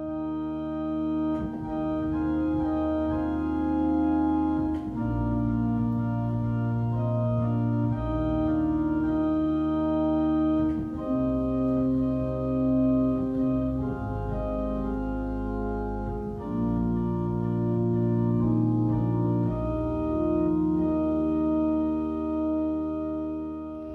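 Organ playing slow, sustained chords over deep bass notes, the harmony changing every few seconds.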